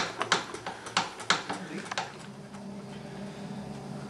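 Hand feed pump of a model steam plant being worked by its lever to pump water into a Stuart 504 boiler, clicking about three times a second until it stops about halfway through. A faint steady hum follows.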